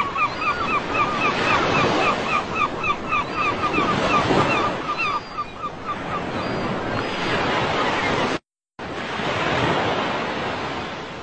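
Ocean surf washing in steadily and swelling in waves. For the first five seconds or so an animal gives a rapid run of short, high, repeated chirps, about four or five a second, over the surf. The sound cuts out completely for a moment about eight and a half seconds in.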